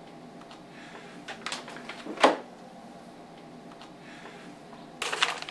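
A few light clicks, then one sharp knock about two seconds in, as the plastic third brake light housing and its screws are handled during fitting. A short rustle comes near the end, over a faint steady hum.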